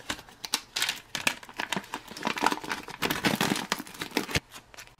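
Clear plastic food pouch crinkling and rustling as it is handled and pulled open, a dense run of irregular sharp crackles.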